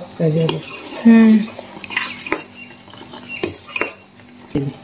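Steel spoon stirring sugar syrup in a steel pot, clinking against the pot's sides with several sharp knocks and short metallic rings.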